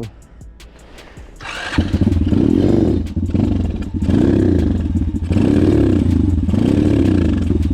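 A 140cc pit bike's engine being started after stalling repeatedly. It runs in three spells of a second or two each, its pitch rising and falling several times.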